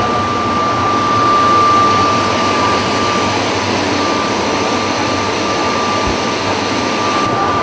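Tomato washing machine running: water spraying and churning over the produce, with a steady, even rushing noise and a thin, steady high-pitched whine.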